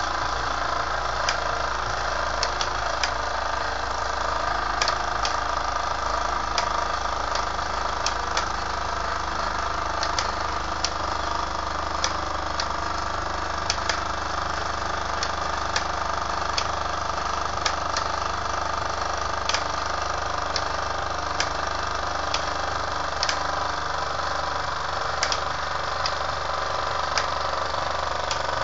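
Toy steam workshop running: Mamod workshop models turning on string belts and pulleys, driven by a Wilesco D14 live-steam engine. It makes a steady mechanical running sound with frequent light, irregular clicks.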